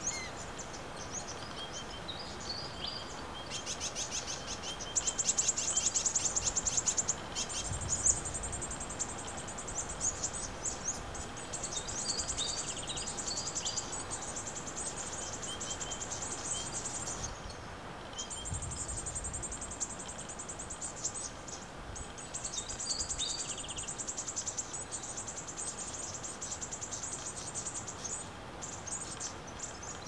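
Brown-headed honeyeaters calling in short high chirps and chatter, against a very high, fast-pulsing trill that comes and goes in stretches of several seconds.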